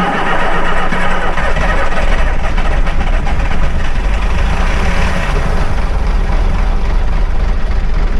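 Volvo B10 bus's diesel engine running at a steady idle, just after being started.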